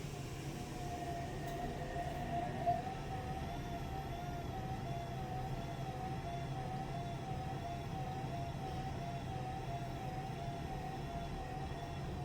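Washing machine running its drain cycle: a motor whine that wavers up and down about twice a second over a steady low hum, with one sharp click about two and a half seconds in.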